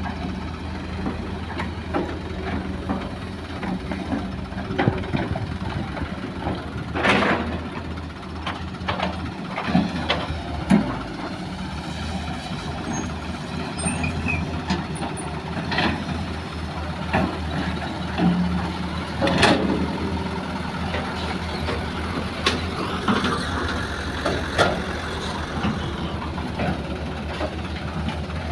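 Heavy diesel engines of a Hitachi hydraulic excavator and dump trucks running steadily, with irregular clunks and crashes as soil and rocks are loaded into a steel dump-truck bed. Two louder bursts of noise come about seven and nineteen seconds in, and a rising whine comes near the end.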